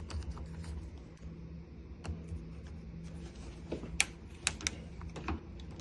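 Scattered small clicks and taps of lock hardware being handled as a screw is turned in by hand, with a sharper cluster of clicks about four to five seconds in. A steady low hum runs underneath.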